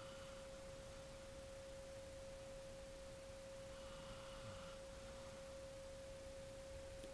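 A sleeping corgi mix snoring softly, one snore about four seconds in, over a steady single-pitched tone.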